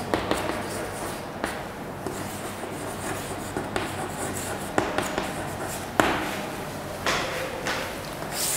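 Chalk scratching across a blackboard as words are written, in short scraping strokes with a few sharp taps of the chalk against the board.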